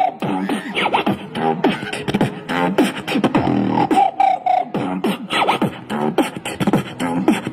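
Beatboxing into a handheld microphone: a fast run of mouth-made kick and snare hits with low bass thumps, mixed with vocal pitch slides and a held melodic note about four seconds in.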